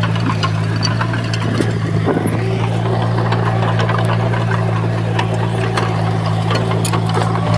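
Heavy diesel engine of earthmoving machinery running steadily under load, with scattered short clanks and knocks over it.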